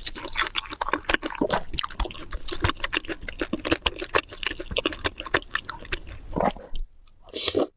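Close-miked eating: wet chewing and mouth smacks, a dense run of small sticky clicks and squelches, with a short pause near the end.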